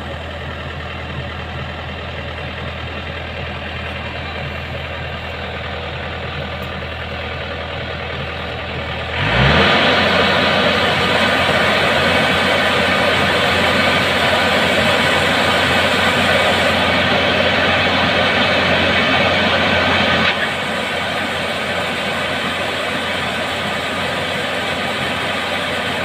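Yanmar YH850 rice combine harvester's diesel engine running steadily. About nine seconds in it revs up sharply and the machine gets much louder as it discharges threshed grain through its unloading auger. The noise eases back somewhat around twenty seconds in.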